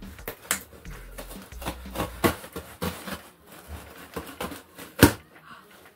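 A cardboard shipping box being opened and handled by hand: scattered rustles, taps and clicks of cardboard and packing, with one louder knock about five seconds in.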